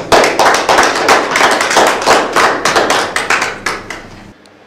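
A small group applauding with dense, quick claps that stop about four seconds in.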